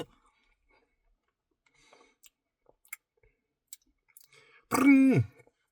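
Faint, scattered mouth clicks from a man eating ice cream, then a short hummed vocal sound, about half a second long, that falls in pitch near the end.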